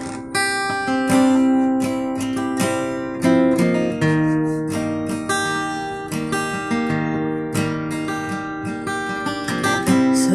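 Acoustic guitar strummed, its chords ringing and changing.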